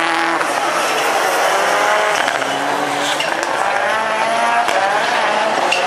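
Several rallycross Supercars racing through a corner, their turbocharged engines revving up and down through gear changes. A few sharp exhaust pops come near the end.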